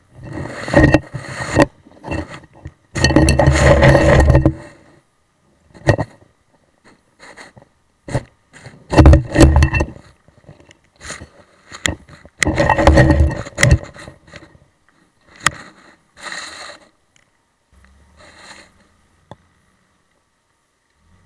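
Irregular bursts of scraping and knocking on an action camera's waterproof housing underwater, with sharp clicks in between. The longest bursts come about three seconds in and again around nine and thirteen seconds.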